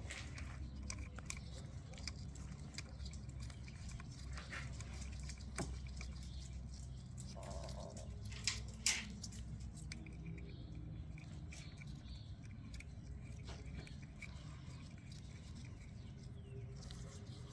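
Scattered light clicks and taps of small carburetor parts being handled and fitted, the loudest two close together about halfway through, over a low steady hum.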